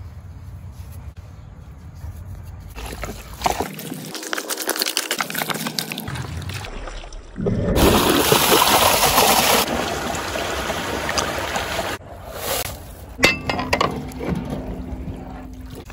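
Water pouring and splashing into a large aluminium cooking pot, loudest for a few seconds in the middle.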